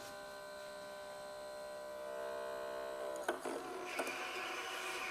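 Juki UX8 sewing machine's built-in bobbin winder spinning a bobbin: a steady electric motor whine, slightly louder after about two seconds. Past three seconds come a few clicks, then a rougher whirring.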